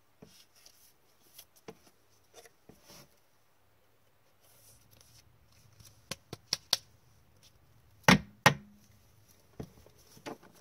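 Trading cards in plastic sleeves and a rigid plastic top loader being handled, making light clicks and taps. Sharper plastic knocks come in the second half, the loudest two close together about eight seconds in.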